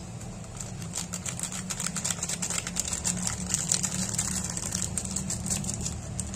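Foil seasoning sachet crinkling in the hand as the powder is shaken and tapped out of it: a quick run of small crackles. A steady low hum sounds underneath.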